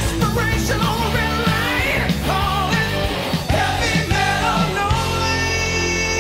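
Background music: a song with singing over steady bass and instruments. A long held note comes in about five seconds in.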